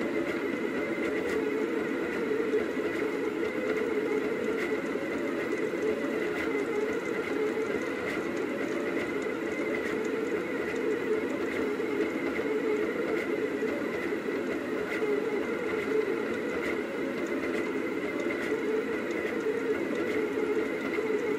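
Rostock delta 3D printer running mid-print, its motors making a steady mechanical whir.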